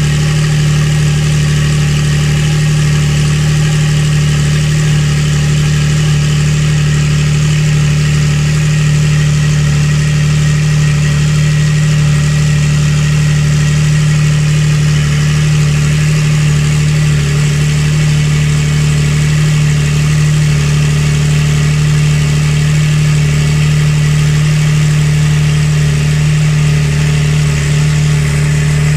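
Porsche 992's turbocharged flat-six idling steadily through an Akrapovic aftermarket exhaust: an even, deep purr that holds one pitch throughout, with no revving.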